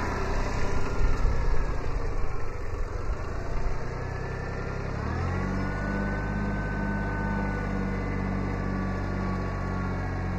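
Kubota B7100 sub-compact tractor's three-cylinder diesel engine running. For the first four seconds it is mixed with uneven, louder noise; about five seconds in, the engine note rises and then settles into a steady hum.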